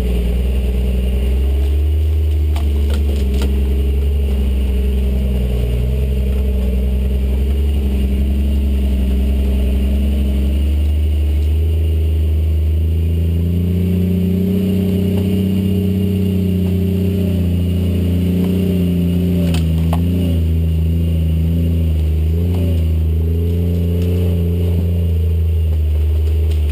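Jeep engine working under load as it climbs a steep dirt trail, its pitch rising about halfway through and then rising and falling with the throttle, heard from inside the open-topped cab. A few brief knocks sound over it, near the start and again later on.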